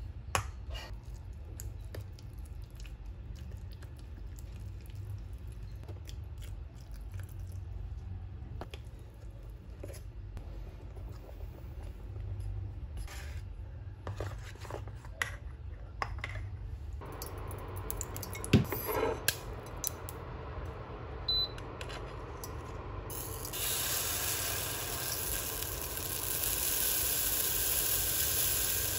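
A spoon and whisk scraping and clinking against a stainless steel bowl while pancake batter is mixed, with one loud clink near the middle. About three-quarters in, a steady sizzle starts as batter cooks in a hot stainless saucepan.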